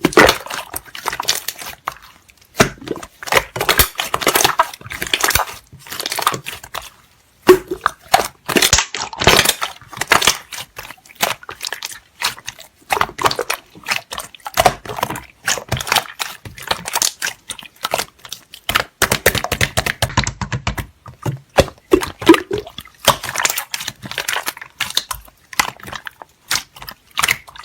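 Slime being squished and pressed by hand, making bursts of crackling, clicking pops a second or two long with short pauses between.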